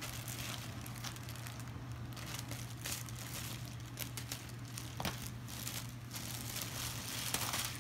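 Plastic shipping bag and wrapping crinkling and rustling as they are handled while the package is unpacked, with irregular crackles.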